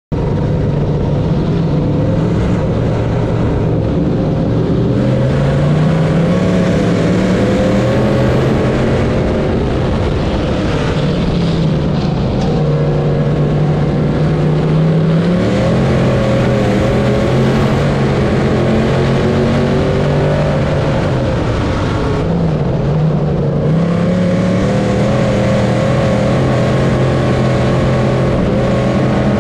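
Dirt-track sportsman modified race car's engine under racing load, heard from on board. The pitch climbs and drops again and again as the car accelerates and lifts around the oval.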